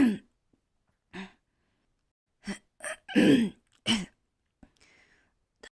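A girl coughing and gasping in short voiced bursts: a couple of single ones, then a cluster of three or four about two and a half to four seconds in. The coughs are put on deliberately, acted rather than from illness.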